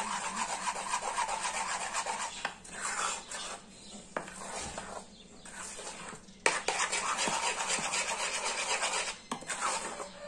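A spoon stirring and scraping a thick condensed-milk and chocolate topping mixture around a small metal saucepan, a steady rasping scrape that eases for a couple of seconds mid-way and then picks up again sharply.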